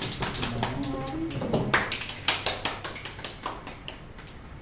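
A small group of people clapping their hands, quick irregular claps that thin out and stop near the end.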